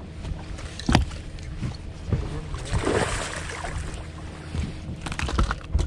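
Steady low hum of a boat motor, with a sharp knock about a second in, a brief rush of noise around three seconds in, and a few more knocks near the end.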